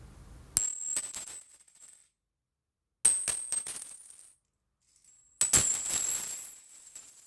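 Three coin drops on a hard surface, about two and a half seconds apart. Each is a bright metallic clink with a high ringing, followed by a few quick rattling bounces that die away within about a second. The last drop is the loudest.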